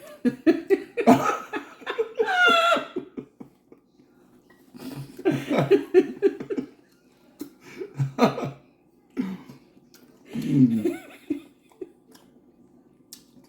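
People laughing in several separate bursts, one of them high-pitched, about two seconds in.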